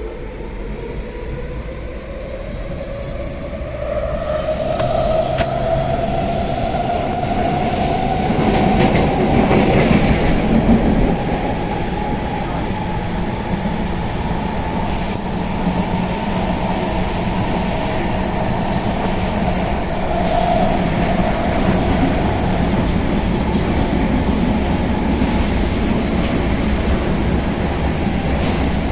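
Athens Metro Line 2 train running, heard from inside the carriage. The motor whine rises in pitch over the first few seconds as the train picks up speed, then holds steady over the rumble of wheels on rails, louder for a few seconds around the middle.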